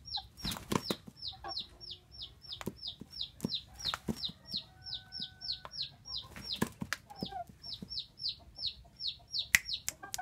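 Chickens clucking, with a steady string of high, falling peeps repeating about three times a second and scattered sharp taps.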